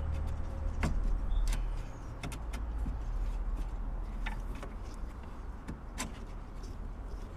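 Scattered light clicks and knocks of a diesel fuel filter and its plastic fuel-line connectors being turned and handled by hand, over a steady low rumble.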